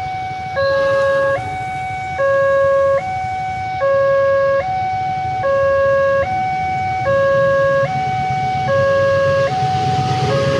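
Level crossing warning alarm sounding a steady electronic two-tone signal, a higher tone then a lower one, each held under a second and repeating without pause, to warn of an approaching train. A steady low rumble of heavy rain lies underneath and swells toward the end.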